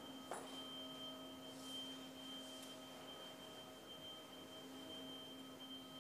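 Faint steady hum of several held tones, one of them high-pitched, with a single light click shortly after the start.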